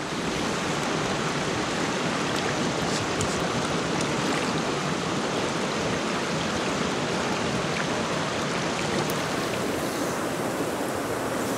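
Small mountain trout stream flowing: a steady, even rush of moving water.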